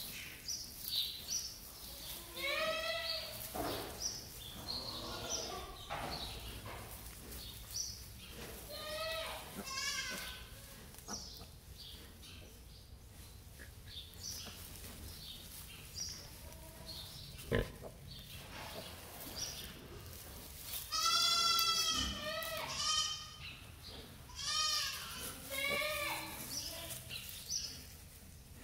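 Newborn piglets squealing: many short, high-pitched calls that arch up and down, repeated through the stretch. The longest and loudest squeal comes about two-thirds of the way through, and there is one sharp click shortly before it.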